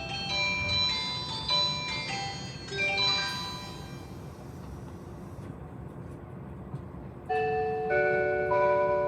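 Onboard announcement chimes of a JR 185 series train: one melody of quick bell-like notes ends about three seconds in, and a second chime of held, overlapping tones starts near the end, over a low steady rumble.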